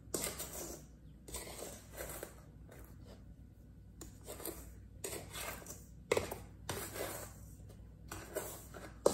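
Silicone spatula scraping and stirring a sugar, flour and melted-butter mix around a stainless steel mixing bowl, in repeated strokes about once or twice a second, with a sharper knock against the bowl about six seconds in.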